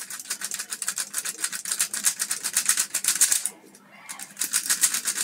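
A 3x3 speed cube's layers clicking as they are turned fast and repeatedly by the fingers, in a quick, even rattle of many clicks a second. The clicking stops briefly about three and a half seconds in, then starts again.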